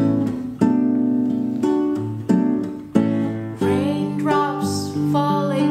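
Acoustic classical guitar fingerpicked, a string of plucked notes and chords each ringing out. About three and a half seconds in, a woman's singing voice comes in over the guitar.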